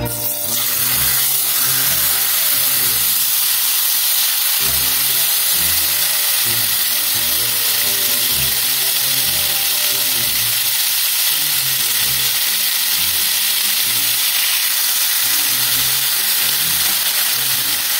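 A whole slab of marinated beef laid into hot melted butter in a nonstick pan starts sizzling at once, then fries with a steady hiss.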